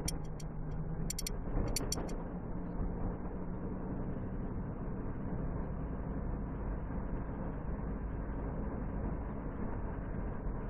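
Steady road and engine noise inside a moving vehicle's cabin, with a low engine hum underneath. A few short sharp clicks come between about one and two seconds in.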